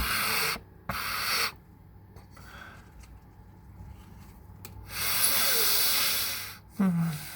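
A person taking loud, sharp breaths during an allergy sneeze build-up: two quick breaths at the start, a long drawn breath about five seconds in, then a short voiced catch falling in pitch near the end.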